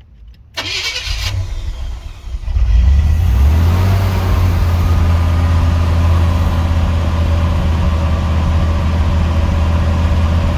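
1984 Chevrolet Monte Carlo engine cranked on the starter, catching about two seconds later and settling into a steady fast idle on a cold start. The owner suspects a misfire that can be heard from the tailpipe.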